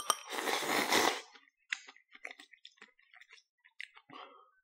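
A person slurping noodles from a bowl of miso soup, a loud wet slurp lasting about a second, followed by chewing with soft, scattered wet smacks and clicks.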